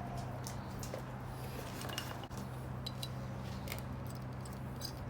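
Scattered light metal clicks and clinks as brake pads and their thin metal dampener shim are handled and fitted, over a steady low hum.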